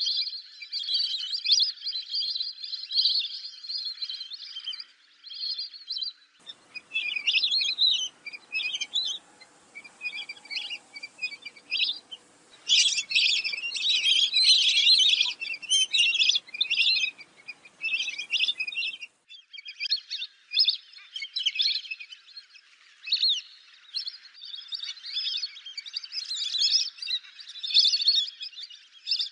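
Lesser whistling ducks calling: rapid, overlapping high whistled chirps from several birds in quick succession. A differently recorded stretch with a faint low hum beneath the calls runs from about six to nineteen seconds in.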